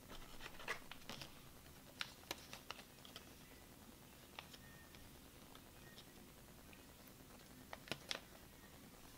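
Faint clicks and light taps of trading cards being handled and set down on a playmat: a cluster in the first second, a few around two seconds in, and a sharper pair near the end.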